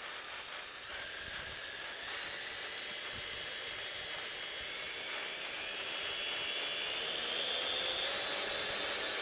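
Brushless electric motor and geared drivetrain of a 1/10-scale RC car on a 3S battery, spinning its wheels on a dyno. It makes a high whine over a hiss that climbs slowly and steadily in pitch and grows louder as it speeds up.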